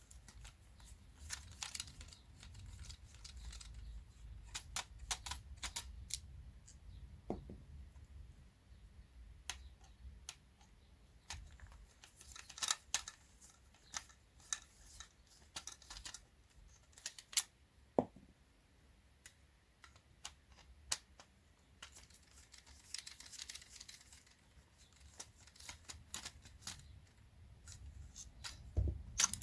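Scattered faint clicks, ticks and short scrapes of a screwdriver and loose parts being handled while a Panasonic stereo amplifier is unscrewed and taken apart, with a few sharper clicks in the middle.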